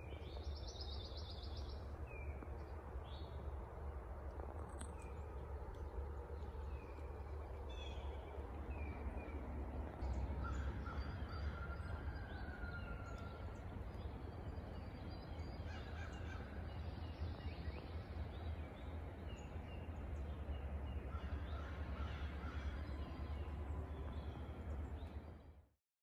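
Outdoor ambience of wild birds chirping and calling in short, scattered notes, with a few longer calls, over a steady low rumble. The sound cuts off abruptly near the end.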